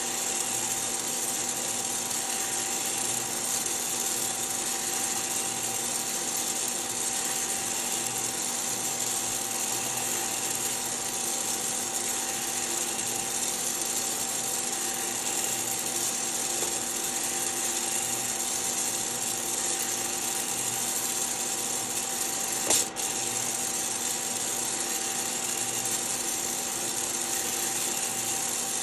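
Hottop coffee roaster in its cooling cycle: the cooling fan and the stirring-arm motor run steadily with a constant hum and hiss while the arm turns the freshly roasted beans in the cooling tray. One sharp click about three-quarters of the way through.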